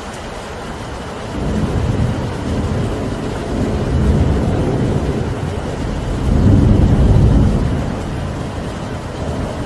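Steady rain with deep rumbling swells that rise and fade three times, the loudest about seven seconds in.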